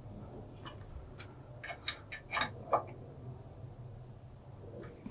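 Small metallic clicks and ticks of an Allen key working the rail's mounting screws as they are tightened, a handful of sharp ticks bunched in the first three seconds, over a low steady hum.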